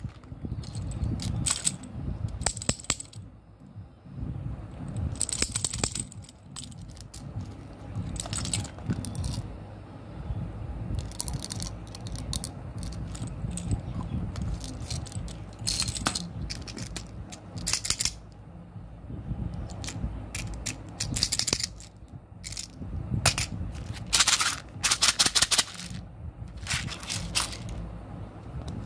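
Small hard candies rattling inside plastic bottles and tubes as they are handled and shaken, in many short separate bursts, with clicks and knocks of plastic containers and caps.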